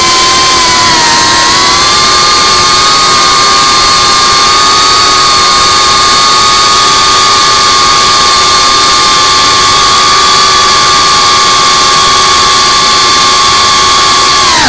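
FPV quadcopter's brushless motors and propellers whining loudly and steadily in flight, picked up by the onboard camera. The pitch dips briefly about a second in, then holds level.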